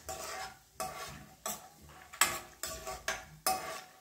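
Steel ladle stirring peanuts frying in oil in a kadai, scraping across the pan bottom in repeated strokes about every half second to second, with a light sizzle of the hot oil between strokes.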